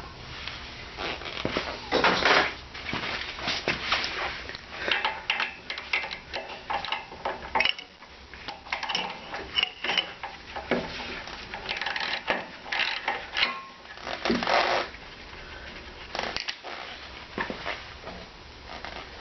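Irregular metallic clicks, clinks and scraping of hand tools and small metal parts as the bolt holding the float bowl of a snowthrower's carburetor is undone and the bowl is worked loose.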